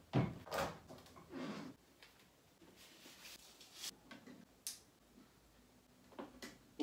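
Handling knocks and clicks from a portable suitcase record player being set down on a table, its lid opened and a vinyl record put on: a few knocks in the first second and a half, then scattered sharp clicks.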